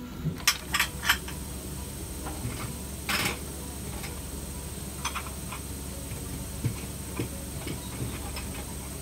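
Scattered light clicks and knocks over a steady low hum, several sharp ones in the first second and a brief hissing burst about three seconds in.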